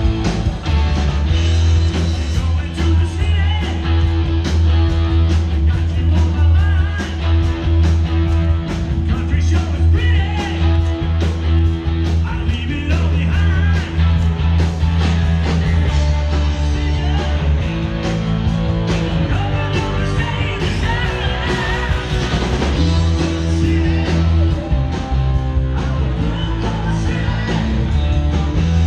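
Live rock and roll band playing through PA speakers: electric guitar, a strong bass line and a steady beat, with a singing voice over it.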